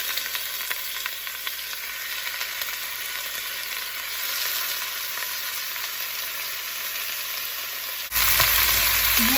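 Bone-in chicken thighs sizzling in hot canola oil with onion, garlic and ginger, a steady frying hiss. About eight seconds in it turns abruptly louder and fuller.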